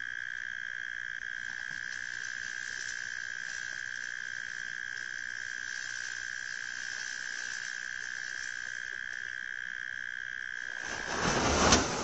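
Steady night-time chorus of calling animals, one constant high trill. Near the end a sudden loud crash cuts across it.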